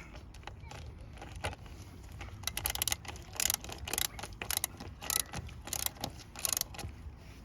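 Metal hand tools clicking and clinking while a part is loosened on the engine, with a run of sharp clicks in quick clusters from about two and a half seconds in.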